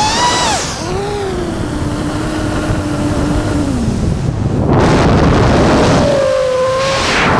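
FPV quadcopter's motors and propellers whining. The pitch drops sharply about half a second in, holds low for a few seconds, then surges back up, with loud rushing bursts around five seconds in and again near the end as the motors spin up during acro flips.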